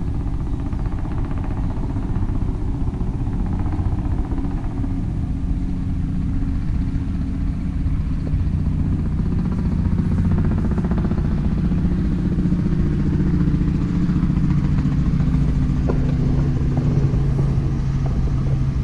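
A motor engine running steadily with a low hum, growing louder about halfway through.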